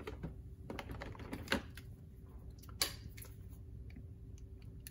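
Scattered light clicks and taps as a deck of game cards is handled and lifted out of a plastic box insert, over a faint steady hum.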